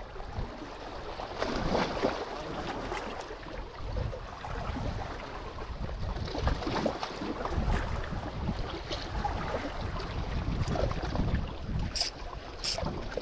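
Sea water washing and lapping against a rocky shore in uneven surges, with wind buffeting the microphone. Near the end, three short sharp clicks about two-thirds of a second apart as the Shimano Vanford spinning reel is handled.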